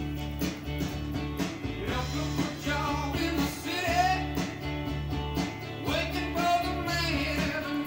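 A vinyl record playing on a Pioneer PL-560 turntable: a song with guitar, a singing voice coming in about two seconds in.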